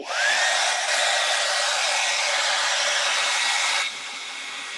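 Hair dryer switched on, its motor whine rising as it spins up, then blowing steadily, drying fresh chalk paint. About four seconds in it drops noticeably quieter and keeps running.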